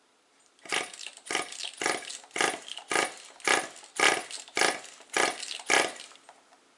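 Nitro engine of a Tamiya TGX RC car being cranked over in about ten short, rough strokes, roughly two a second, without firing or settling into a run.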